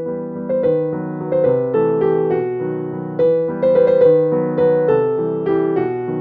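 Background piano music: a gentle keyboard melody of repeated, overlapping notes.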